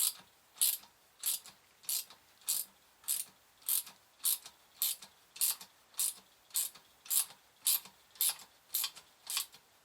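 Sharp clicks, evenly spaced at about one and a half a second, as the screw of a small bearing puller is wound in to draw the front bearing off a dynamo armature shaft.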